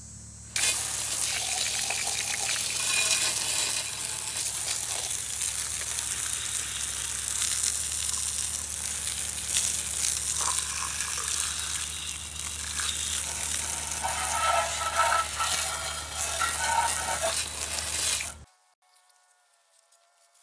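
Water spraying hard from a hose nozzle onto a Briggs & Stratton flathead engine block, rinsing off degreaser: a steady hiss that starts suddenly and cuts off near the end.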